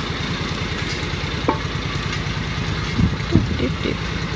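A vehicle engine idling steadily with a low, pulsing rumble. A couple of short squeaks and a few low knocks come through it about halfway in.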